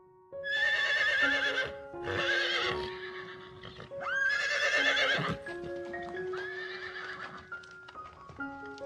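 A horse neighing four times, each whinny with a quavering pitch, the last one fainter, over steady background music.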